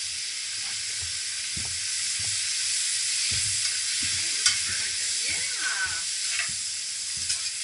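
Asparagus sizzling in melted butter in a frying pan, a steady hiss, with the clicks and scrapes of a utensil stirring it against the pan; one sharper click about four and a half seconds in.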